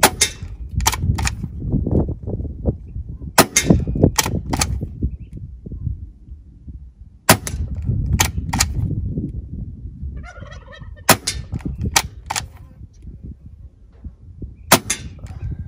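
Gamo Arrow .22 PCP air rifle with a shrouded barrel firing five shots, about one every four seconds. Each shot is a sharp crack followed by a few quick clicks of the rear cocking lever loading the next pellet, with wind rumbling on the microphone.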